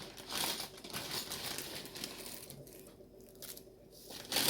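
Irregular crinkling and rustling of packaging being handled, as someone fetches button shells for a button maker. It is busiest in the first couple of seconds and dies down toward the end.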